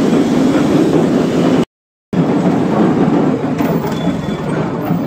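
Loud, steady noise of busy road traffic with no clear single vehicle standing out. About a second and a half in, it cuts out completely for under half a second, then resumes.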